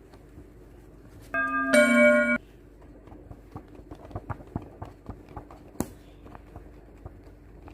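A short bright two-note chime about a second and a half in, followed by a run of irregular light clicks with one sharper click near the middle.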